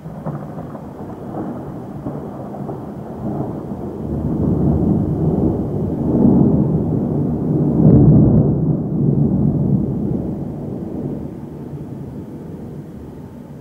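A long roll of thunder. The low rumble comes in at once, swells in waves to its loudest about eight seconds in, then rolls away slowly.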